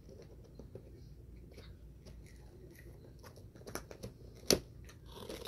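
Scissors snipping open and shut in the air: a series of light clicks, with one sharper snip about four and a half seconds in.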